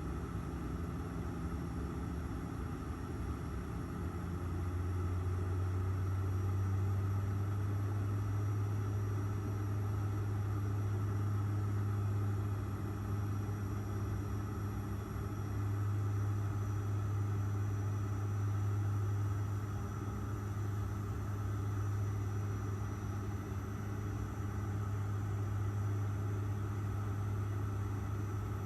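Airliner cabin noise: the steady drone of the engines and airflow heard from a passenger seat, with a low hum that swells about four seconds in and then holds steady.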